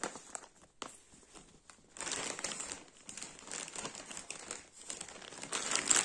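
Clear plastic saree packets crinkling and rustling as they are handled and moved. A couple of sharp crackles come first, then steady crinkling from about two seconds in, loudest near the end.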